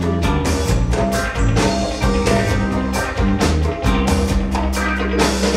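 A live band playing: electric guitars and electric bass over a drum kit and congas, with a dense, steady beat of drum strikes.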